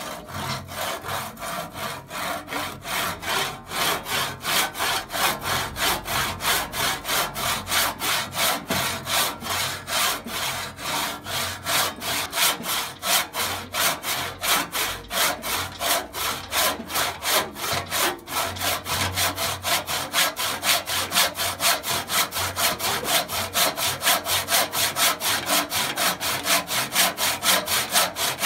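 Restored Stridsberg & Biörck PIO 275 P crosscut hand saw cutting through a wooden board held in a vise, its teeth rasping in quick, even strokes, about two to three a second.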